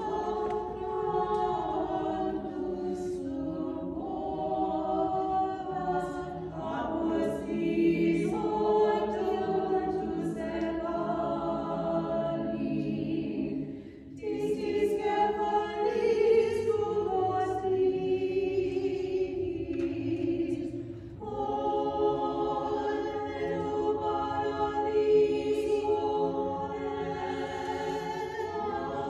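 A small church choir singing unaccompanied liturgical chant in long held phrases, pausing briefly about 14 and 21 seconds in.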